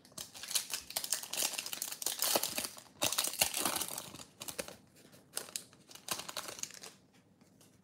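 Foil wrapper of a Bowman baseball card pack being torn open and crinkled by hand, a dense crackling that thins out near the end.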